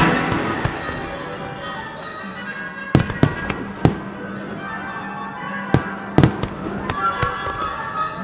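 Aerial fireworks shells bursting with sharp bangs, about five reports spread between three and six and a half seconds in, over quiet sustained music of the pyromusical soundtrack. A loud passage of the music drops away right at the start.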